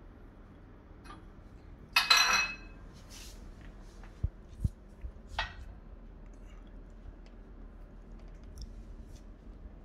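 Steel embossing die parts clinking together with a short metallic ring about two seconds in, followed by a few light knocks and handling sounds as the die and leather are worked out from under the hydraulic press ram.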